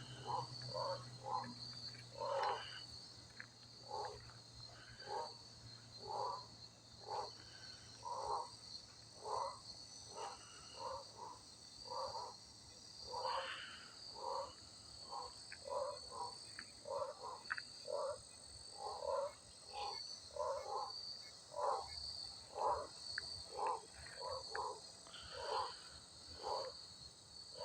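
Frogs calling: a long series of short croaking calls, roughly one or two a second, over a steady high-pitched chorus.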